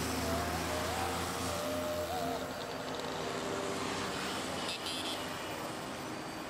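Road traffic passing on a city street: vehicle engines running with tyre and road noise. A low engine drone is strongest for the first two seconds or so, then fades.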